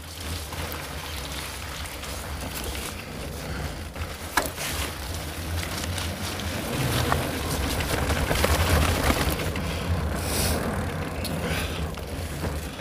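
Wind buffeting the microphone over the rumble of mountain bike tyres rolling on a wet gravel trail, with scattered clicks and rattles from the bike and one sharp knock about four seconds in.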